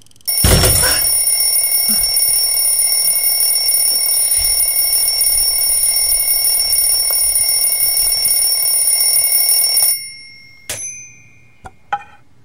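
Alarm clock ringing, a loud shrill continuous ring that cuts off suddenly about ten seconds in, followed by a sharp click and a few light knocks.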